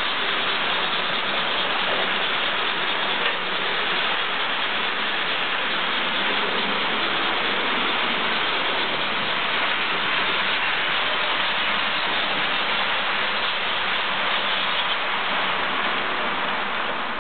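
Several electric model trains running together on the track: a steady whirring, rolling hiss of small motors and metal wheels on the rails.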